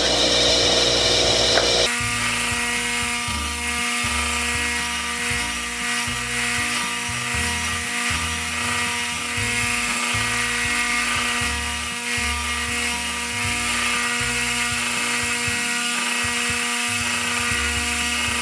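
Electric bench grinder running free, a steady motor hum and whine with nothing against the wheel.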